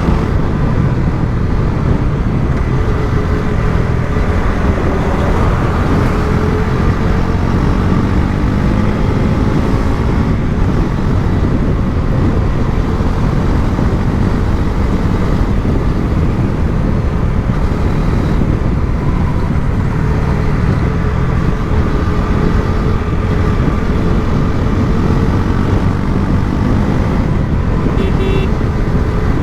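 Bajaj Pulsar NS400Z's single-cylinder engine through its stock exhaust, running as the bike is ridden, its pitch rising and falling with the throttle.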